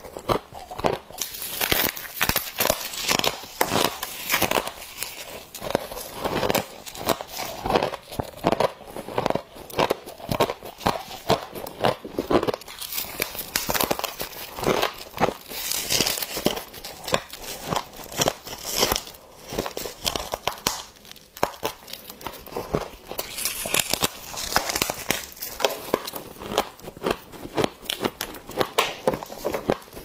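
A person biting into and chewing soft, packed frost: a dense run of crisp crunches and crackles, with the frost crumpling as it is squeezed and broken in the hands.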